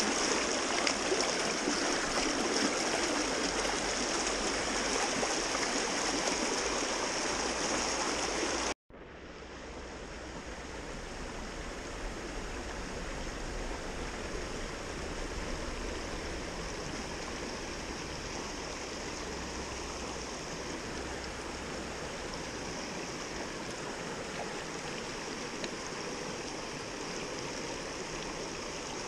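Creek water rushing over rocks close by, a steady noise. About nine seconds in it cuts off abruptly and comes back softer, the stream flowing more gently.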